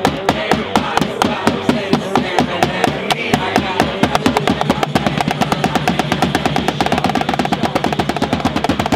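Drum circle: several people hitting drums with sticks in a fast, driving rhythm over music. The strokes quicken into a rapid roll near the end.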